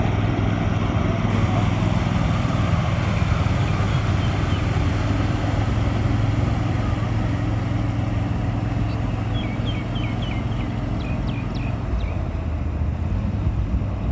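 A motor vehicle's engine drones steadily under a constant rushing noise. A string of short, high chirps comes about nine to twelve seconds in.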